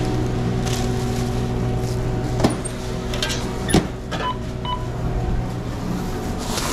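Steady hum of a sandwich shop's kitchen machinery, with two sharp knocks a little before halfway and then two short electronic beeps, like an oven's keypad.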